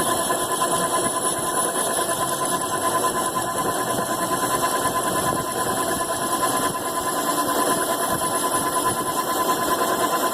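A metalworking machine tool running steadily: an even mechanical noise carrying a constant mid-pitched tone and a fainter high tone, with no starts or stops.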